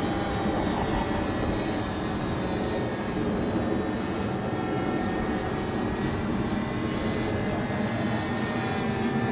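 Radio-controlled model airplane's motor running steadily in flight, its pitch holding level.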